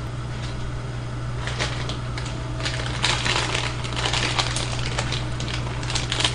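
Plastic instant-ramen packets crinkling and rustling as they are torn open and handled, the crackling getting busier about three seconds in. A steady low hum runs underneath.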